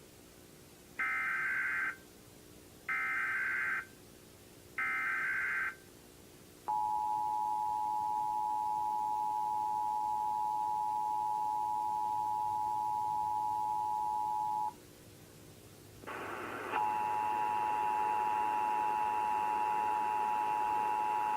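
Emergency Alert System test tones: three one-second bursts of the digital data header, then the two-tone attention signal held steady for about eight seconds. After a short pause, another two-tone attention signal starts over hiss, about three-quarters of the way through.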